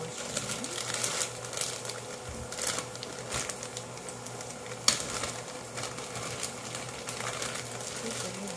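Clear plastic zip-top bag crinkling as it is handled and its seal is worked open, a run of small irregular clicks and rustles with one loud click about five seconds in.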